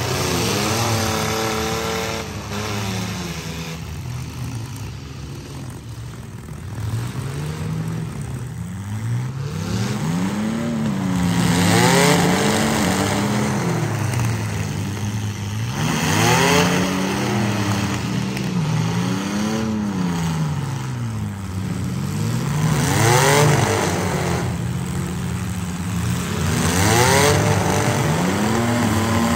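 Demolition derby SUVs' and small trucks' engines revving hard again and again, the pitch climbing and falling back every few seconds as the vehicles accelerate and back up in the dirt arena.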